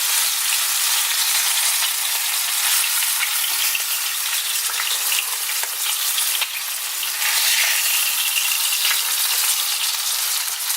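Fish frying in hot oil in a pan: a steady sizzle with fine crackling.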